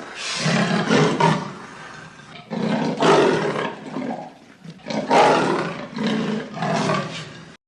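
Tiger roaring several times in a row, each roar a rough, loud call lasting about a second, with short pauses between them.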